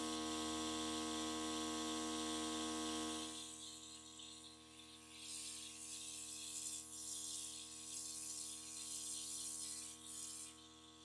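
Airbrush compressor humming steadily, louder for the first three seconds and then quieter, while the gravity-feed airbrush sprays in uneven spurts of hissing air over the second half. Thinned acrylic paint is being test-sprayed onto a paper towel and now flows freely.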